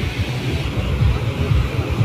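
Wind buffeting a phone microphone at the seashore, a heavy uneven rumble over the steady wash of surf.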